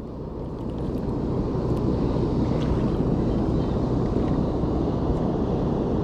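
Wind rumbling across the camera microphone, a steady low noise that swells during the first second and then holds.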